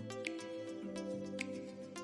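Soft background music: sustained notes with a light tick about once a second.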